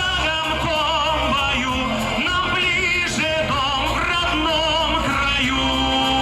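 Live concert music: a voice singing a slow melody with heavy vibrato over a band accompaniment.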